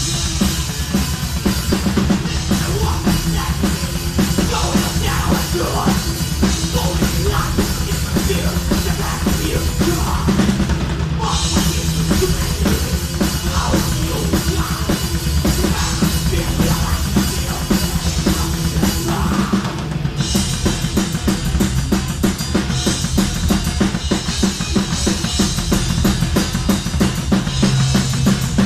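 Live rock band playing loud, with a drum kit driving fast, even bass drum and snare strokes under sustained bass and guitar. The cymbals drop out briefly about 11 seconds and again about 20 seconds in.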